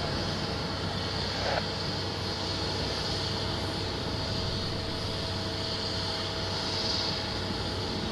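Jet aircraft engine running steadily: a constant rushing hiss with a faint steady whine, and one small tick about one and a half seconds in.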